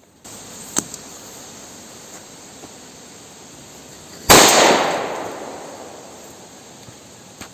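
Pyrotechnic airsoft DM-51 replica grenade, a plastic shell packed with peas or BBs, exploding: one sharp bang about four seconds in that dies away over about two seconds. A short click comes about a second in.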